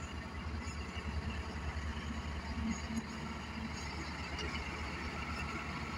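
Caterpillar 12G motor grader's six-cylinder diesel engine running steadily as the grader moves along levelling soil with its blade.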